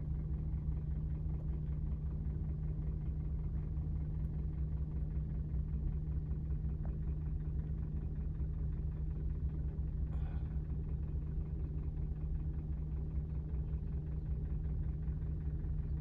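A steady low rumble with a constant hum, like an engine running, with one brief high squeak about ten seconds in.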